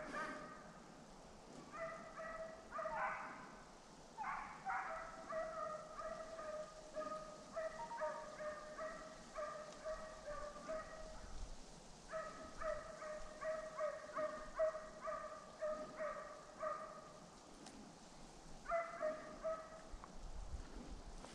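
A pack of deer hounds baying while running a deer's trail: a faint chorus of quick, pitched, repeated barks that breaks off briefly twice.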